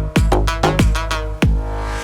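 Background electronic music with a steady beat and deep bass hits that drop in pitch.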